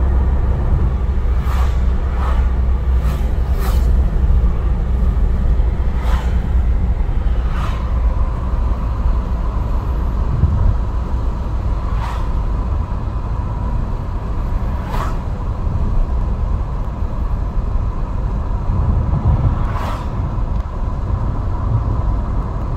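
Steady low road and engine rumble inside a moving Mercedes-Benz car, with several brief sharp clicks scattered through it.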